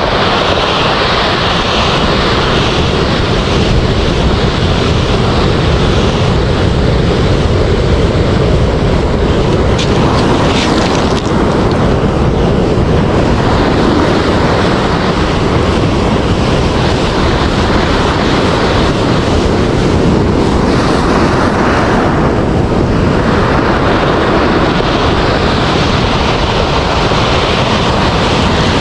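Ocean surf breaking and washing up a pebble beach, heard as a loud, steady rush, with wind buffeting the microphone.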